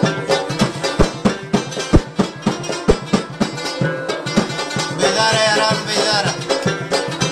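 Pashto folk music in the bandar/tapay style: drum strikes and a plucked string instrument in a steady rhythm, with a man's sung line for a second or so, about five seconds in.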